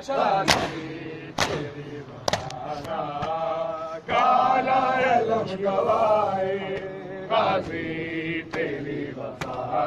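Men chanting a noha in unison while beating their chests in matam, the sharp hand-slaps on bare chests landing in a steady beat about once a second.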